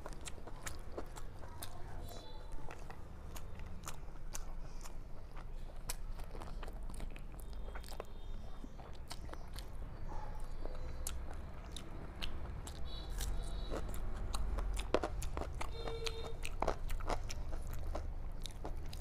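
Close-up eating sounds: chewing and lip smacks with many small, sharp clicks as a person eats fried rice and chicken by hand.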